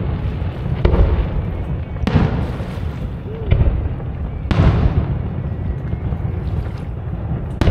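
Aerial firework shells bursting: about five sharp bangs a second or two apart, over a continuous low rumble.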